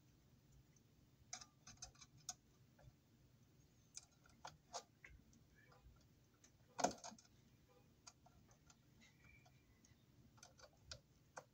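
Faint scattered clicks and ticks of pliers gripping and twisting a bundle of insulated copper wires together, with one louder click about seven seconds in.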